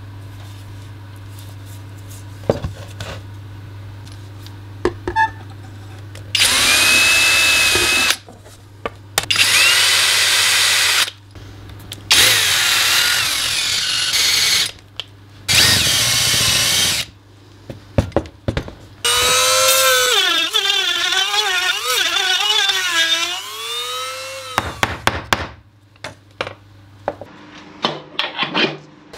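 Power drill boring into an applewood log, running in several bursts of a couple of seconds, then one longer run whose pitch wavers as the bit works into the wood. Sharp knocks and clatter from handling the log come between the runs and after them. The hole is the pilot hole for the lathe's screw chuck.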